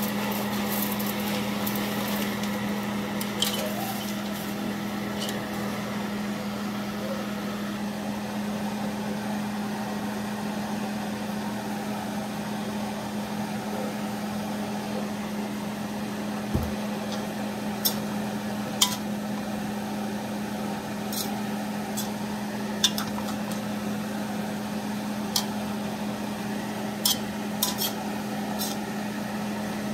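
Metal tongs clacking against an aluminium wok now and then as pancit canton noodles are tossed, the clacks coming mostly in the second half. A steady low hum runs underneath, and the pan sizzles in the first few seconds while broth is still in it.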